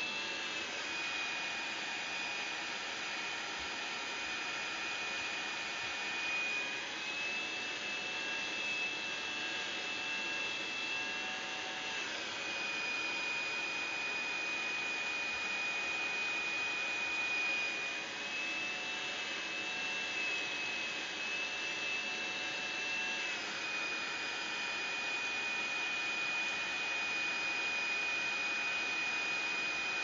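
Hairdryer blowing steadily, a rushing whir with a high whine that steps slightly up in pitch twice and back down again. It is warming a LiPo battery to soften its sticker's adhesive.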